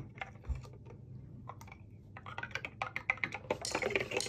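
A model locomotive body shell being swished around by hand in a shallow liquid bath in a basin. Small irregular clicks and knocks grow busier about two seconds in, with light splashing near the end.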